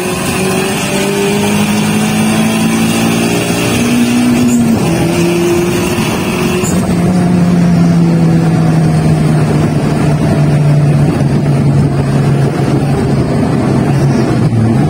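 Car engine running, its note shifting in steps about four and a half and six and a half seconds in, then sinking slowly through the last several seconds.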